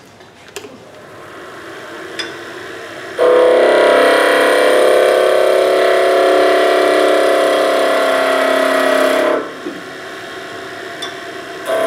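Skew chisel cutting a spinning construction-lumber blank on a wood lathe as it is turned from square to round. The cut starts suddenly about three seconds in, runs steadily and loudly for about six seconds, breaks off, and starts again just before the end, with the lathe running more quietly between cuts.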